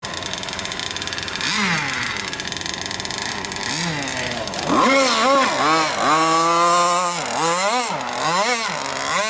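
Motor of a Warpath radio-controlled racing boat (a 7316/2-450-LL-CT) running under repeated throttle bursts, its note sweeping up and down several times and held higher for a while as the boat speeds across the water.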